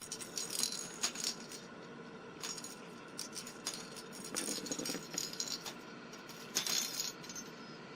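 Homemade ring-shaped cat toy being batted and nosed by a pet, its loose balls clicking and rattling around inside in irregular bursts, busiest about half a second in, around four and a half seconds in, and again near seven seconds.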